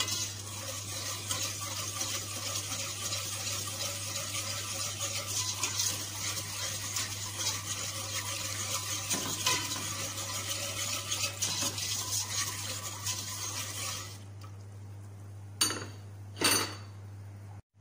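Metal spoon stirring green gulaman (agar) liquid in a stainless steel pot, scraping and clinking against the pot in a continuous scratchy swish for about fourteen seconds. The stirring then stops, and two short sharp clinks of metal on the pot follow about a second apart.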